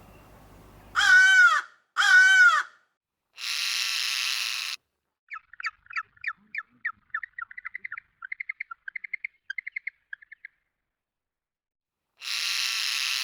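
Birds calling: two loud, arching calls close together, then a harsh raspy call, then a rapid run of short chirps lasting about five seconds, and another harsh call near the end.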